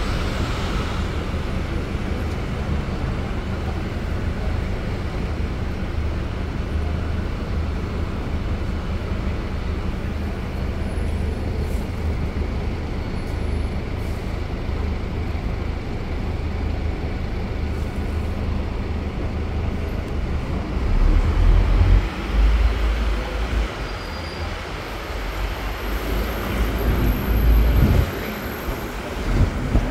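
Bus engine running steadily under city traffic and road noise, heard from an open-top sightseeing bus. About two-thirds of the way through, and again near the end, the low rumble swells louder in uneven surges.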